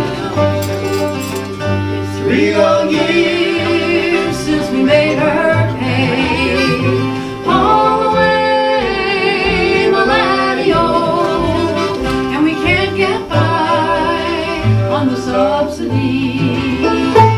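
Acoustic folk band playing live on string instruments, with a held melody line wavering in vibrato over a steady bass pattern.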